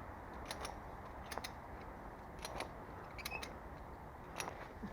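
Ratchet strap being cranked: sharp metallic clicks from the ratchet mechanism, mostly in close pairs, about one set a second, as the strap tightens and drags a stuck magnet free.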